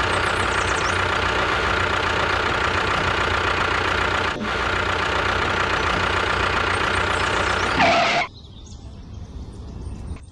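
Steady tractor engine running sound, as dubbed over a toy tractor, with a brief dip in the middle; it cuts off about eight seconds in.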